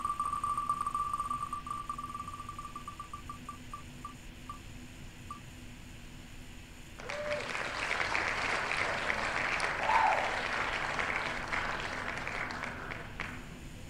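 Name-picker wheel's tick sound effect: rapid ticks that slow and stop about five seconds in as the wheel comes to rest. About two seconds later a recorded applause sound effect plays for about six seconds, announcing the winner, and cuts off abruptly.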